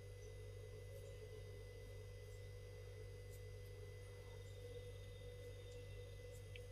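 Near silence: a faint steady hum with a thin high tone, the recording's background noise; the kneading itself is not audible.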